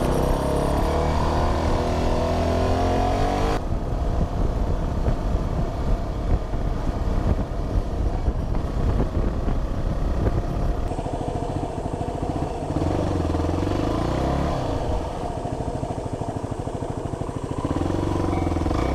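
Motor vehicle engine accelerating, its pitch rising for the first few seconds and then cutting back abruptly. It runs on with a rough, clattering sound and picks up again twice later.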